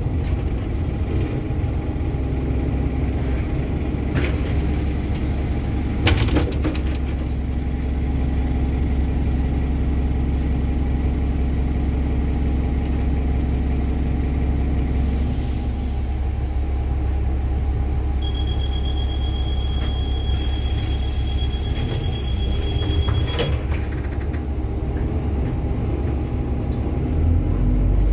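City bus engine rumbling steadily, heard from inside the cabin, with bursts of compressed-air hiss. A steady high beep sounds for about five seconds past the middle, ending with a sharp clunk, and the engine rumble rises near the end.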